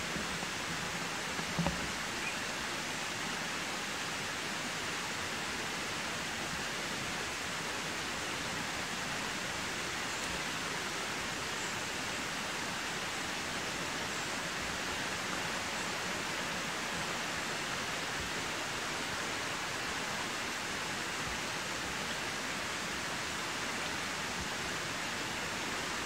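A steady, even rushing hiss with no bird calls or other clear sounds in it, and one faint low knock about two seconds in.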